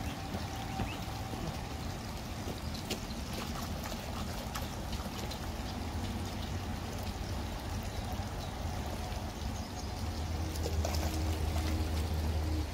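Small creek trickling and running steadily, with light splashing from swimming goslings and ducklings, a little louder near the end.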